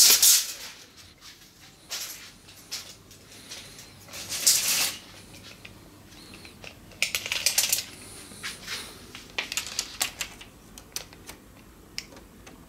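Steel tape measure handled against a wooden speaker cabinet: short scraping swishes and scattered sharp clicks. The loudest swishes come at the start, about four and a half seconds in, and around seven seconds in.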